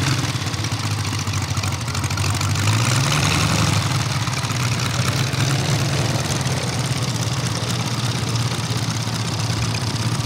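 Seven-cylinder 800 cc radial engine of a giant-scale RC Stearman PT-17 biplane running at low revs while taxiing, with propeller noise. The revs pick up a little about three seconds in, then hold steady.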